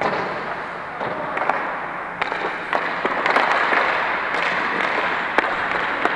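Ice hockey play: skate blades scraping the ice as a steady hiss, with a dozen sharp clacks of sticks and puck, the loudest about two, three and five seconds in.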